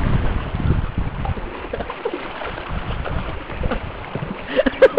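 River water rushing and splashing around a paddled canoe in fast water, with wind buffeting the microphone as a low rumble. A few short, sharp sounds come just before the end.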